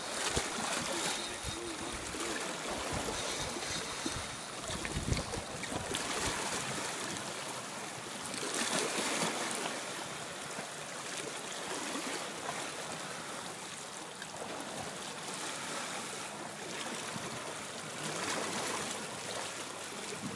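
Wind buffeting the microphone over open water, with water splashing and lapping around a small boat. The gusts are strongest in the first few seconds.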